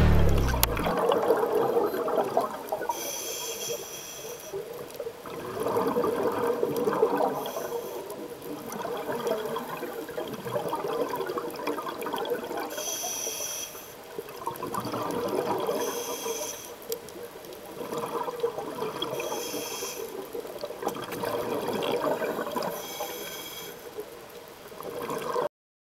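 Scuba diver breathing through a regulator: short hissing inhalations and gurgling, bubbling exhalations, repeating every few seconds.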